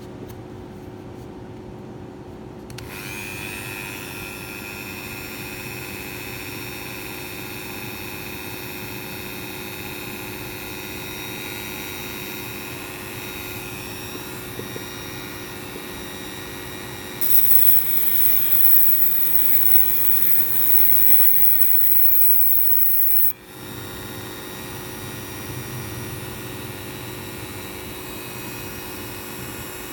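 Handheld rotary tool fitted with a cutting disc, running at a steady whine. For several seconds from just past halfway, a louder, high hissing grind is heard as the steel point of a safety-pin hook is sharpened against the spinning disc, and it stops abruptly.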